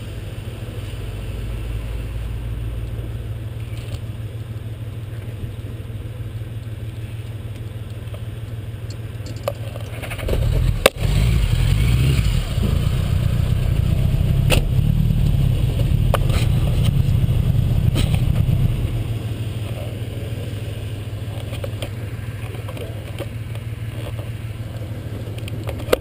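Honda Gold Wing motorcycle engine idling steadily. About ten seconds in there is a sharp click, then a louder, rougher rumble with a few knocks that eases off at about nineteen seconds.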